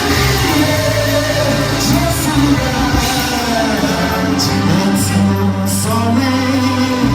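Live gospel worship music: a voice singing over a band with a sustained bass line.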